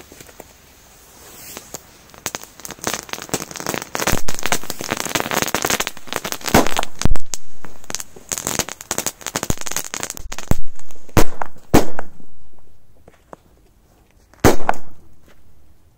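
Several firecrackers set off together on ice. Lit fuses crackle, then comes an irregular string of sharp bangs, the loudest about seven seconds in and three close together around eleven seconds, with a last lone bang near the end.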